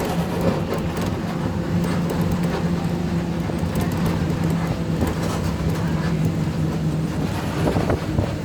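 A motor vehicle's engine running at a steady pitch, with road noise.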